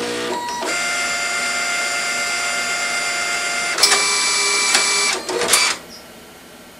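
Old desktop inkjet printer running, its motors whining at steady pitches that change in steps. It grows louder about four seconds in, with a few sharp clicks, and stops about six seconds in.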